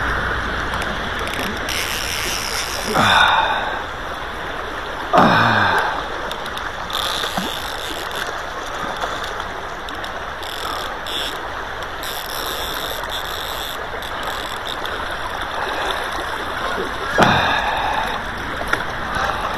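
River current rushing steadily around a wading angler, with splashing as a hooked trout is played to the net. A few brief louder sounds slide down in pitch about three and five seconds in and again near the end.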